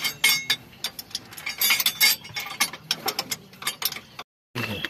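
Irregular run of sharp metallic clicks and clinks as spanners and valve parts knock together while a tractor's hydraulic spool valve block is worked on by hand. The sound breaks off briefly about four seconds in.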